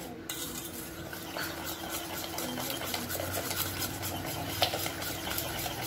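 Wire whisk beating eggs and powdered sugar by hand in an enamel pot: quick, irregular clicks and scrapes as the wires strike the pot's sides and bottom.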